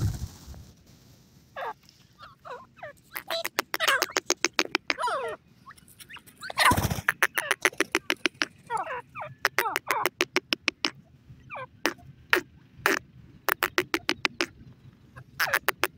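Grey francolins giving rapid chattering calls: several runs of quick, clicky notes strung tightly together, with short gaps between runs. A brief loud rush of noise breaks in about seven seconds in.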